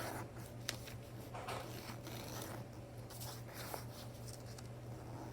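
A sheet of paper being folded and creased by hand: a series of short rustling, scraping strokes, with one sharp click a little under a second in.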